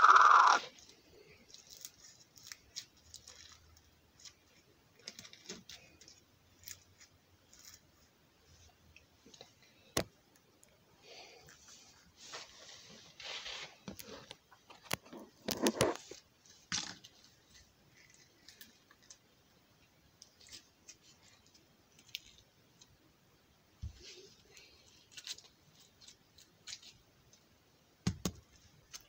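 Scattered quiet squishing, clicking and crinkling from hands handling slime and its small plastic tubs, with a few louder knocks from hands bumping near the microphone, around 16 seconds and again near the end.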